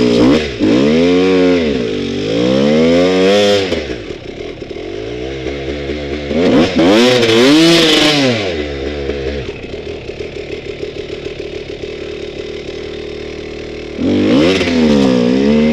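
Motorcycle engine revving up and down several times, settling to a steadier low run in the middle before revving again near the end.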